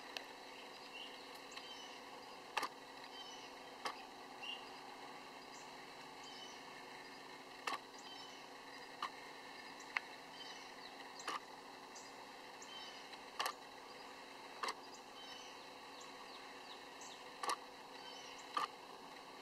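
Quiet outdoor ambience: a steady hiss with faint bird chirps and short, sharp clicks or chip notes every second or two.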